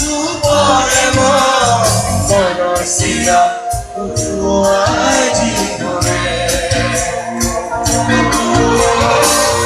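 Live band music with steady percussion and a wavering sung melody.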